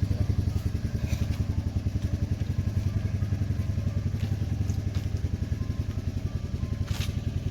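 An engine running steadily at idle with a fast, even low pulse. A few light clinks or knocks sound over it, about a second in, midway and near the end.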